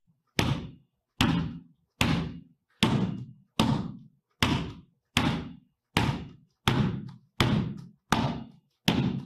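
A basketball dribbled on a wooden floor: twelve bounces in a steady rhythm, about one every three quarters of a second, each a sharp thud that dies away quickly.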